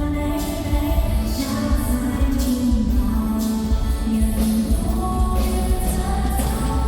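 Live Thai pop song with a woman singing a held, slowly moving melody over a bass-heavy backing.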